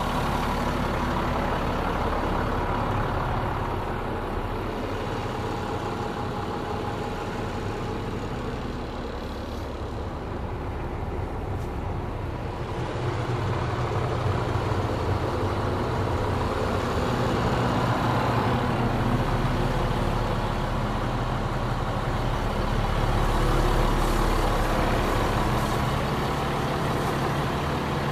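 A 2000 International 4900 plow truck's diesel engine idling steadily, heard up close, a little louder and deeper for a few seconds about two-thirds of the way through.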